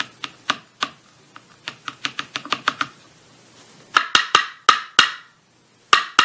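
Metal tweezers clicking and tapping against a lock plug while working at a stuck pin. A quick run of light ticks comes first, then about seven louder clicks that ring briefly in the second half.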